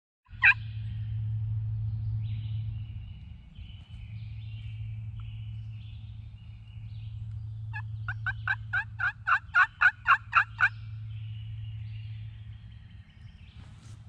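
Wild turkey calling. A sharp call comes about half a second in, then a loud run of about a dozen yelping notes at roughly four a second, from about 8 to 11 seconds in, over a steady low hum.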